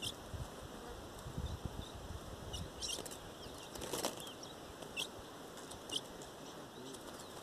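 Ultramarine grosbeaks (azulão) giving about five short, sharp, falling call notes, spaced a second or more apart. A flutter of wings comes about four seconds in as a wild bird flies in over the cages.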